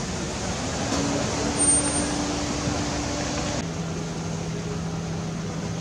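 Steady outdoor ambient noise with a low hum, like distant traffic; it changes abruptly to a different steady hum about three and a half seconds in.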